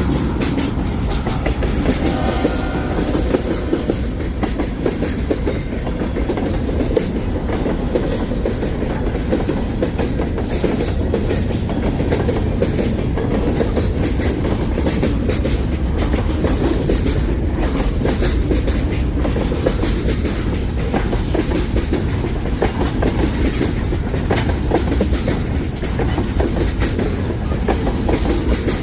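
A train passing close by, a steady heavy rumble with the clickety-clack of wheels over rail joints. A horn trails off in the first few seconds.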